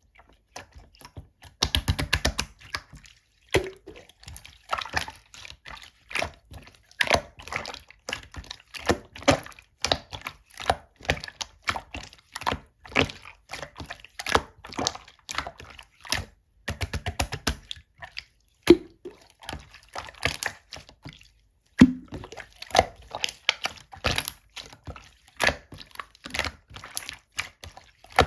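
Clear slime being squished and worked by hand: an irregular stream of sticky clicks and small air-bubble pops, with a fast crackling run about two seconds in and another around seventeen seconds.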